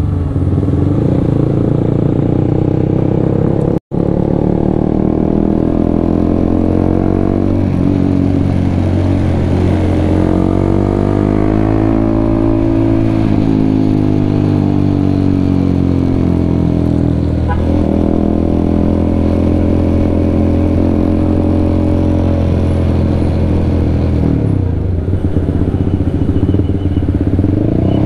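Honda CBR150R's single-cylinder engine heard from the rider's seat while riding. Its pitch rises and falls several times as the bike speeds up and eases off. The sound cuts out for an instant about four seconds in.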